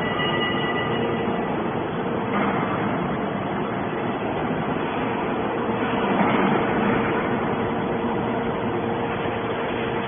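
Hydraulic scrap-metal baler running: a steady mechanical hum with a constant tone held under it, swelling briefly about six seconds in.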